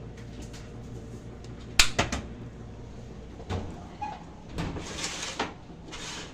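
Oven door opened with a sharp double clunk about two seconds in, then a metal baking sheet slid onto the oven rack with several scrapes and knocks.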